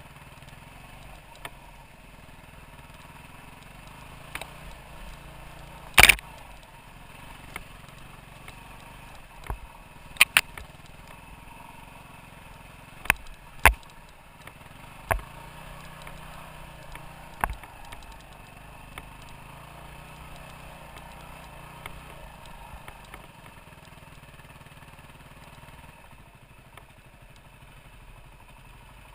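Off-road motorcycle engine running steadily at low trail speed, with sharp knocks and clatters as the bike jolts over rough ground. The loudest knock comes about six seconds in, and more follow in a cluster between about ten and eighteen seconds.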